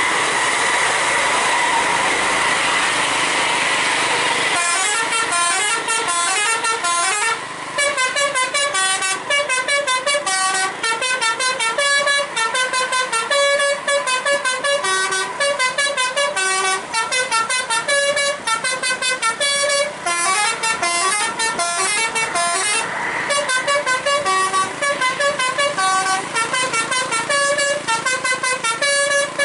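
Telolet basuri musical air horn on a Marita bus playing a fast tune of quick, changing notes, starting about four and a half seconds in after steady road noise. The tune breaks off briefly twice and carries on.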